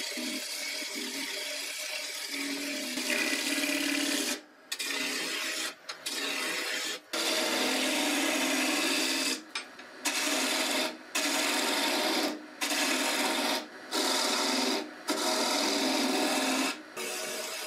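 A gouge cutting a spinning wooden spindle blank on an Axminster AW355 wood lathe: a steady rasping shave of wood peeling off in shavings. From about four seconds in it breaks into a run of passes about a second long, with short gaps between them as the tool comes off the wood.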